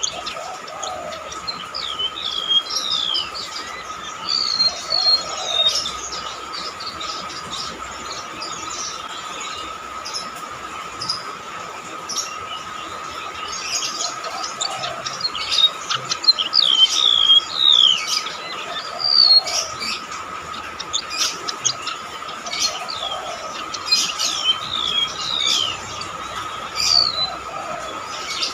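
Golden-bellied gerygone (rametuk laut) singing: shrill, thin whistled notes that mostly slide down in pitch, given in quick runs with short pauses between. A steady faint high tone hums underneath throughout.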